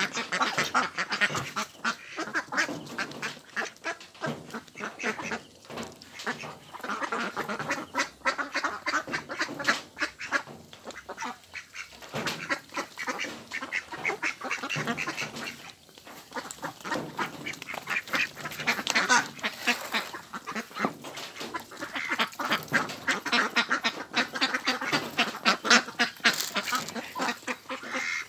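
A flock of domestic ducks quacking without a break, many calls overlapping at once.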